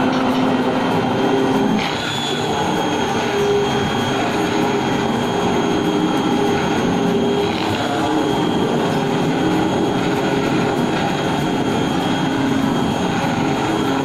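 Hand-held immersion blender running steadily in a stainless steel bowl, blending milk, eggs and sugar into crêpe batter. Its tone shifts slightly about two seconds in.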